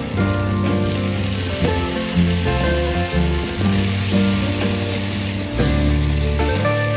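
Chopped tomatoes sizzling in hot oil with fried onions and green chillies in a pan as they are tipped in and stirred. A steady hiss runs throughout, over background music with held low notes.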